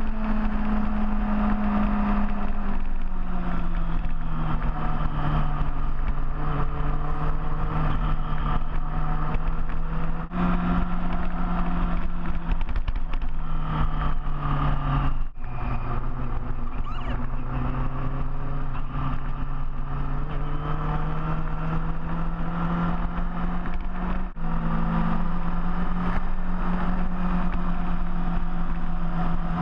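Large motorcycle engine running steadily at cruising speed. Its pitch steps up or down a few times, three of them right after a short break in the sound, as at gear changes.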